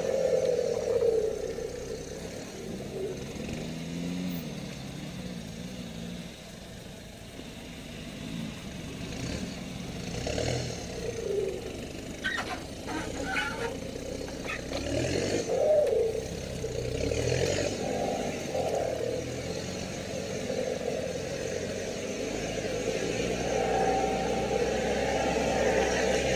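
Off-road 4x4 engine running at low speed on a rough trail, its pitch rising and falling as the throttle is worked. There is a burst of rattling and knocking around the middle.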